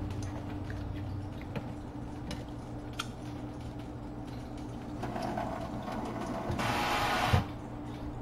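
Kitchen handling noises over a steady hum: small clicks and knocks, then about two seconds of rushing noise that ends abruptly in a thump about seven seconds in.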